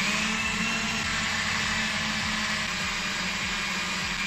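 Cordless electric drill running at a steady speed, boring a hole into the wooden side of a box; its motor gives a steady whine over the grinding of the bit.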